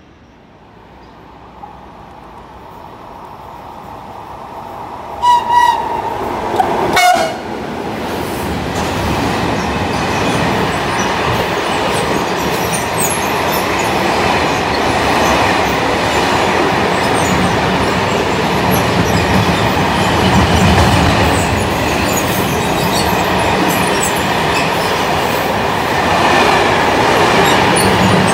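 Electric freight train approaching, its horn giving two short blasts, the second lower, then a long line of covered freight wagons rolling past close by with a steady rumble and clatter of wheels on the rails.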